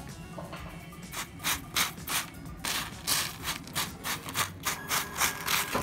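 A fork stirring and scraping crisp fried garlic in a plastic container: a fast series of dry scraping strokes, about three a second, starting about a second in.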